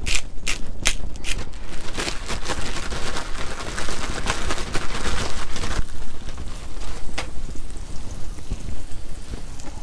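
A few sharp shakes of a salt and pepper shaker, then a plastic zip-top bag of fish fillets crinkling and rustling as it is shaken to coat them in seasoning. From about six seconds in, a softer steady sizzle of fillets frying in hot olive oil in a stainless steel pan.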